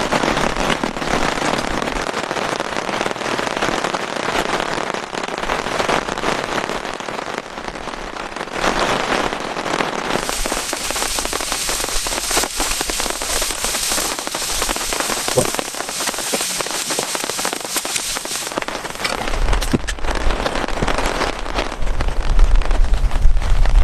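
Heavy rain pattering on a surface, a dense hiss of many fine drop clicks. A low rumble joins near the end and the whole grows louder.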